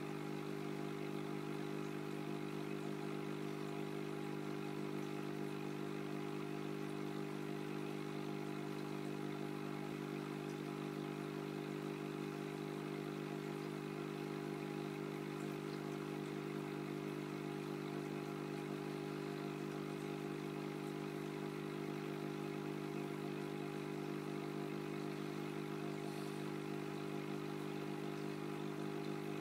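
Steady electrical hum from running aquarium equipment, one unchanging buzz with many even overtones.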